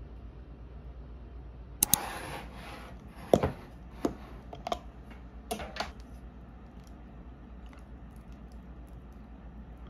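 Snap-lock plastic food container having its lid unclipped and pulled off: a run of sharp plastic clicks and snaps, the loudest about a third of the way in, followed by a few faint ticks as the container is handled.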